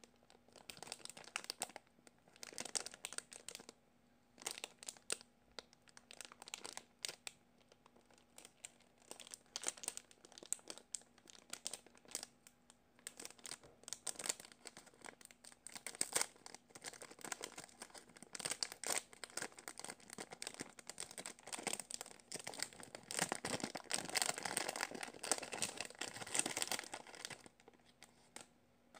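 Clear plastic toy bag crinkling and rustling in the hands as a squishy foam toy is unwrapped, in irregular crackles that grow denser and louder in the second half, then stop shortly before the end.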